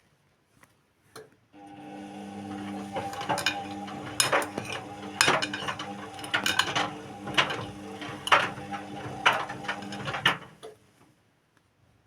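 Indesit WIU81 washing machine's motor starting up and turning the drum for about nine seconds, then stopping. It runs with a steady motor hum and a sharp knock or clank about once a second.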